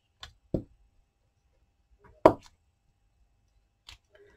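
A few light taps and knocks of paper craft pieces being handled and set down on a tabletop, the loudest about two seconds in.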